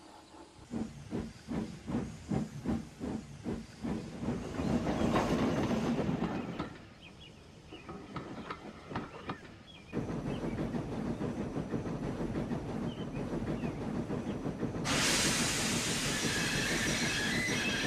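Steam locomotive sound effects: an engine puffing at about three chuffs a second, then a rush of steam hiss, fainter puffs, and a steady running rumble on the rails. About 15 seconds in, a loud hiss of steam cuts in and carries on over the running.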